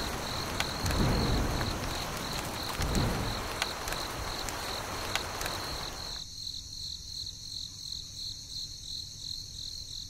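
Rain falling with low rumbles of thunder about one and three seconds in, over crickets chirping in a steady pulsing trill. The rain cuts off abruptly about six seconds in, leaving the crickets alone.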